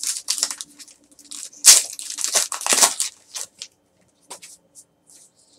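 Foil trading-card pack wrapper being torn open and crinkled by hand, in a run of rustling bursts loudest in the middle. After that come a few short snaps as the cards are handled.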